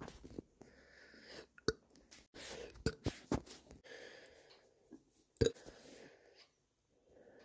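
A nauseous person burping, several short, sharp burps (the loudest about five seconds in) between longer breathy exhales, while trying to burp the nausea out.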